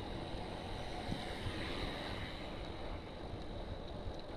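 Wind rushing over the microphone of a camera on a moving road bike, with a low rumble of the tyres on the pavement.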